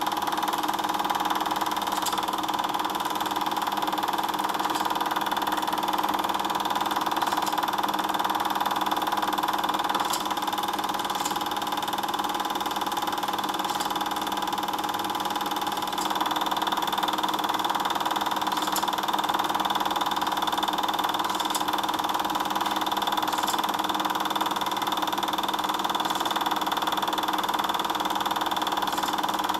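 Super 8 film projector running: a steady mechanical hum with faint clicks every few seconds.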